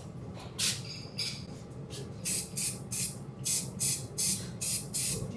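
Aerosol spray can of Hammerite hammered silver metal paint sprayed in short hissing bursts, a couple early on, then about three a second from about two seconds in.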